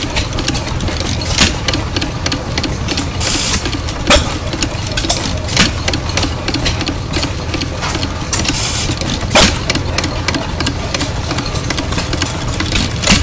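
Milwaukee Machine Works sideshaft hit-and-miss engine running, its valve gear clattering steadily. Five sharp reports come at uneven gaps of one and a half to four seconds, typical of a hit-and-miss engine firing only when its governor calls for power.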